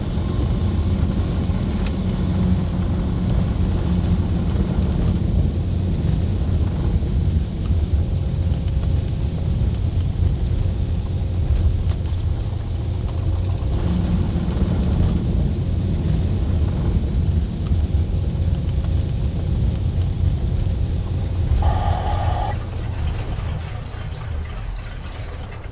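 Cessna 172R's four-cylinder Lycoming piston engine and propeller running at low power while the aircraft taxis on grass, heard inside the cabin as a steady low rumble. A short higher tone sounds near the end, and then the rumble fades out.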